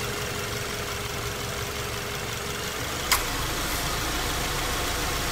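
Car engine idling with a steady hum. A single sharp click comes a little after three seconds in, and after it a low rumble grows slightly stronger.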